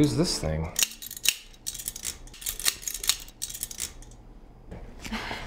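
Metal vaginal speculum being worked open and shut: a quick run of sharp metallic clicks and clacks that stops about four seconds in.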